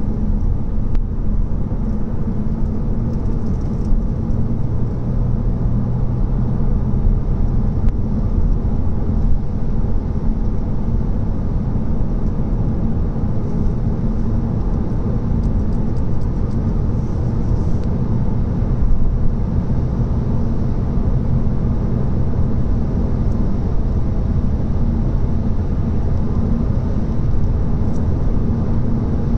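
Seat Leon being driven at a steady pace: a constant low rumble of engine and tyre noise with no clear change in speed or engine pitch.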